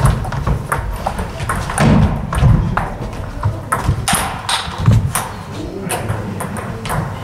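Table tennis rally: the celluloid ball clicking back and forth off the bats and table in quick alternation. There are a few low thuds, the loudest near 2 and 5 seconds in, from the players' footwork on the wooden hall floor.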